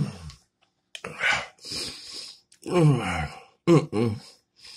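A man groaning and moaning in pain from the burn of an extremely hot sauce: sharp breaths hissed in and out, then two long groans that fall in pitch.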